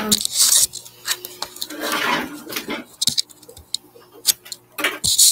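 Handling noise from the camera as it is picked up and carried: rubbing and scraping right against the microphone, with scattered clicks and a sharp knock near the end.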